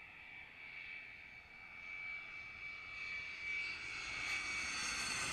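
Turbofan engines of a twin-engine jet airliner on landing approach: a high whine with several steady tones over a rushing noise, growing steadily louder as the plane comes in low toward overhead.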